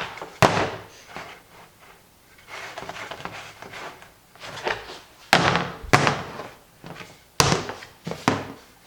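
Hard objects knocked and set down while being handled: about five sharp knocks with short ringing tails, the loudest near the start and in the second half, with quieter scraping and rustling between them.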